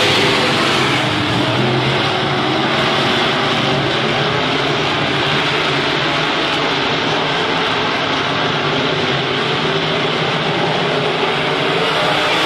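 A field of IMCA modified dirt-track race cars running at speed, their V8 engines blending into one steady, loud engine noise.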